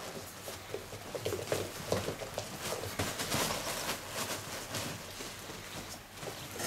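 A litter of puppies whimpering in many short squeaks, with the patter and scrabble of small paws on the bedding.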